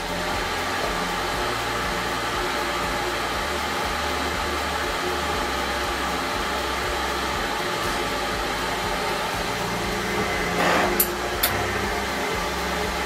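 Cooling fans of a powered-up enclosed fiber laser engraving machine running with a steady whirring hum. Near the end a brief rustle and two sharp clicks.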